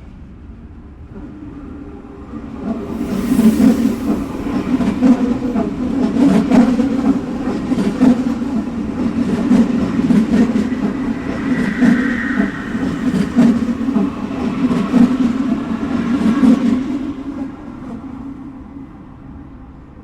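Subway train running on the tracks: a low rumble with repeated clacks of the wheels over rail joints, swelling about three seconds in and dying away near the end, with a brief high whine midway.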